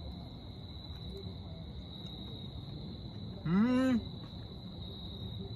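Steady high-pitched drone of insects, with one short voiced "mmm"-like exclamation from a man, rising then falling in pitch, about three and a half seconds in: a reaction to the heat of a green chile he is eating.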